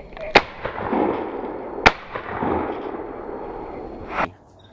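Two shots from a 12-gauge Tristar Upland Setter over/under shotgun, about a second and a half apart, one from each barrel, each echoing away across open country. A lighter knock follows near the end.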